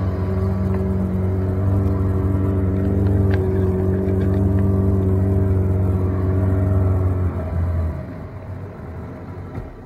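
Small boat's outboard motor running at a steady speed, a constant engine hum, until it drops away sharply about eight seconds in.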